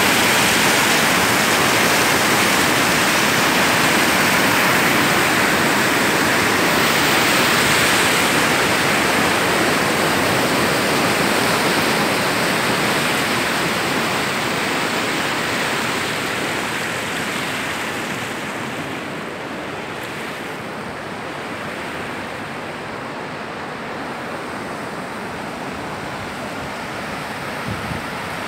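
Muddy floodwater rushing over and through a broken concrete bridge, a steady roar of turbulent water that grows quieter about two-thirds of the way through.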